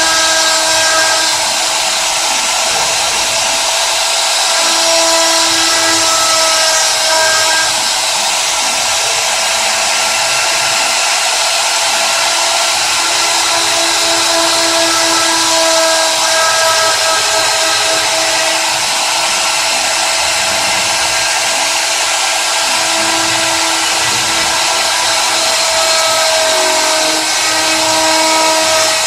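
CNC router running: a steady motor whine and hiss, with a lower tone that fades in and out every few seconds.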